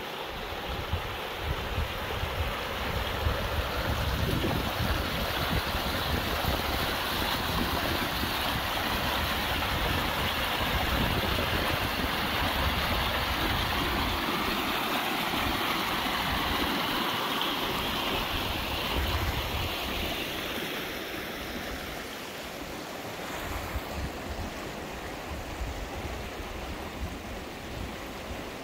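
Fremont River running, a steady rush of water that eases after about three-quarters of the way through. Wind gusts buffet the microphone with a low, fluttering rumble.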